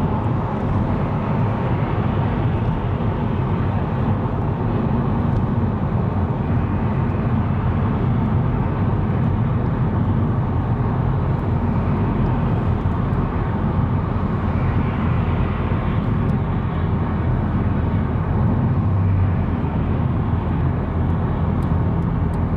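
Steady road noise of a car cruising at motorway speed, heard from inside the cabin: tyre roar with a low, even engine drone.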